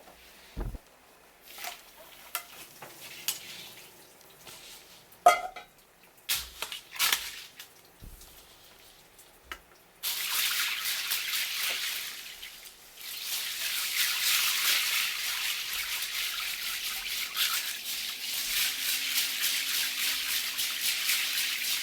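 Light scattered clicks and knocks of kitchen handling. About ten seconds in, water starts running steadily, as from a kitchen tap; it eases off briefly a couple of seconds later and then runs on.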